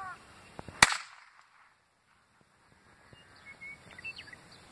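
A single pistol shot about a second in, sharp and loud with a brief echo. Faint chirping follows near the end.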